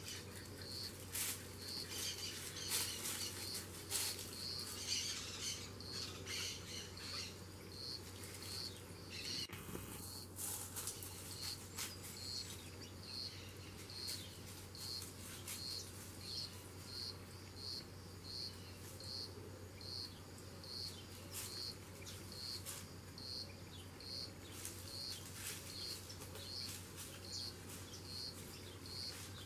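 An insect chirps steadily, one short high chirp a little over once a second. In the first ten seconds, dry leaf litter crackles and rustles irregularly under a foraging giant anteater.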